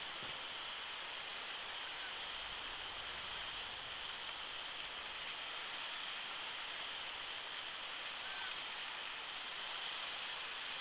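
Steady outdoor hiss, as of wind, with two faint short chirps a couple of seconds in and again near the end.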